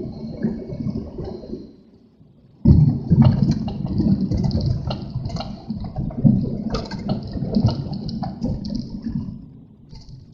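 Gusty, rushing noise of strong wind, surging irregularly, with a brief lull about two seconds in and another near the end.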